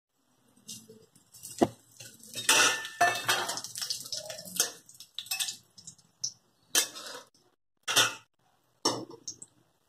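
Metal spatula scraping and clinking against a metal kadhai, stirring garlic and dried red chillies as they fry in a little hot oil for a tadka. A sharp clink comes about a second and a half in, and the last few seconds hold separate scraping strokes.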